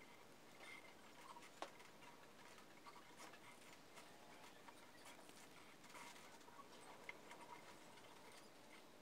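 Near silence, with faint scratching and small clicks of thin copper wire ends being twisted together by hand; the sharpest clicks come about one and a half seconds in and again near the end.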